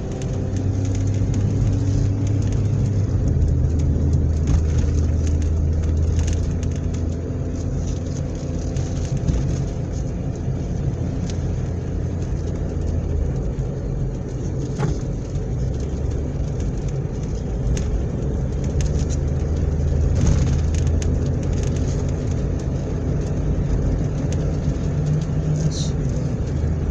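Car engine and road noise heard while driving, with a steady low hum that shifts in pitch a few times.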